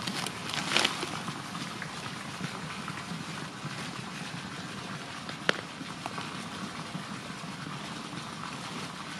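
Dry leaves, twigs and grass rustling and crackling as hands rummage through forest-floor litter, with one sharp click about five and a half seconds in.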